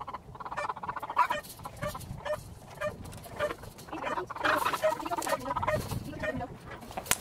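Chickens clucking and calling in short wavering notes, over the light clicking and clatter of wire grid panels being handled.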